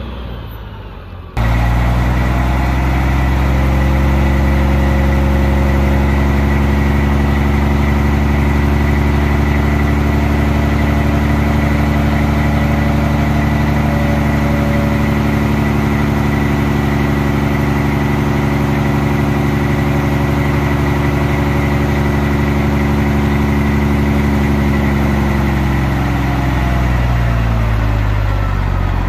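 Detroit Diesel Series 60 12.7-litre inline-six diesel in a 1993 Peterbilt 379 dump truck, running steadily at raised revs. It gets suddenly louder about a second in, and the revs fall away near the end.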